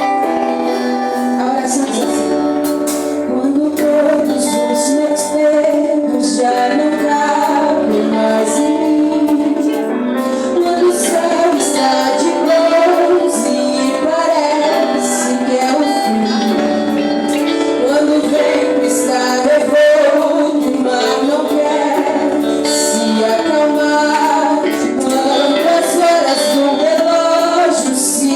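Gospel worship song with a woman's voice singing the melody over instrumental accompaniment.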